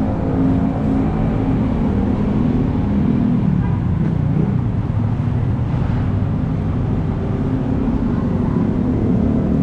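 Busy city road traffic close by: vehicle engines running steadily with a low hum under a continuous wash of road noise.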